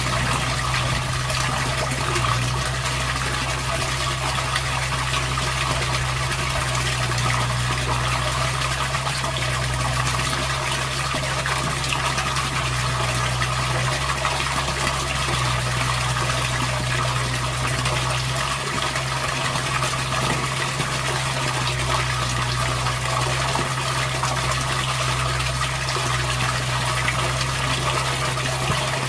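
Steady rush of flowing water, unchanging throughout, with a steady low hum beneath it.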